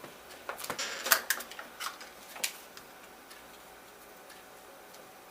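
Small sharp clicks and taps of a screwdriver and small screw against the smart lock's top cover as the top set screw is fitted, a handful of them in the first two and a half seconds, the loudest about a second in.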